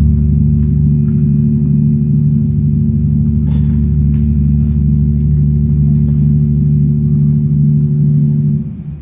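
Deep, steady gong-like drone from an immersive art exhibition's soundtrack over its loudspeakers, held on a few low pitches and falling away sharply near the end.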